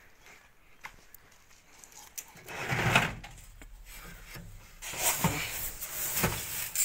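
Plastic cup scooping pigeon feed grain out of a cardboard box: the grain rustles and pours in two bouts, a short one about two and a half seconds in and a longer one in the last two seconds, after a few light clicks of handling.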